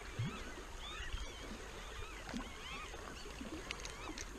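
Lakeshore ambience: a low rumble of wind on the microphone and water lapping, with many birds chirping and twittering throughout. A few light clicks from handling tackle come near the end.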